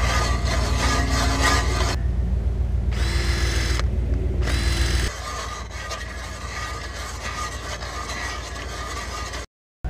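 A hand ice auger is cranked against lake ice, its blades scraping without biting because its starter point has broken off. It alternates with a cordless drill boring a small pilot hole into the ice, whose motor whines in two short runs partway through. The last few seconds are quieter.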